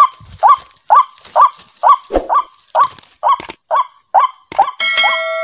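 White-breasted waterhen calls, the same short rising note repeated about twice a second, played as a lure through a small loudspeaker caller. A steady electronic chime of held tones comes in near the end.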